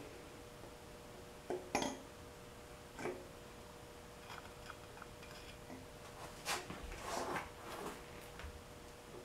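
Scattered metal clinks and taps of water pump bolts being handled and set into place, the sharpest about two seconds in and again past six seconds, over a faint steady hum.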